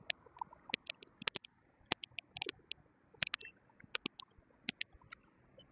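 Irregular sharp clicks and taps, about three or four a second, over a faint steady hiss.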